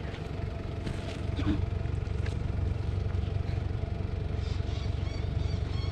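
Toyota Land Cruiser Prado 120-series four-wheel drive approaching slowly along a muddy track, its engine a steady low rumble. Near the end, a repeating run of short high chirps comes in.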